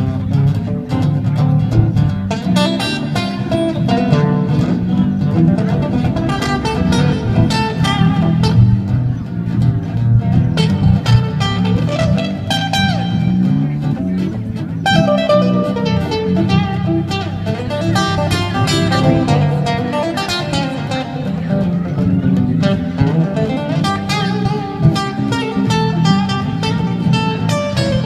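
Live blues band playing an instrumental passage, a guitar picking lead runs over a steady bass and rhythm.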